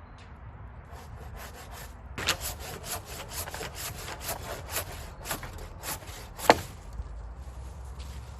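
Hand saw cutting through a green, sap-filled maple log in quick back-and-forth strokes, about three a second. The strokes start faintly about a second in, grow louder about two seconds in, and ease off near the end, with one sharper, louder stroke shortly before they stop.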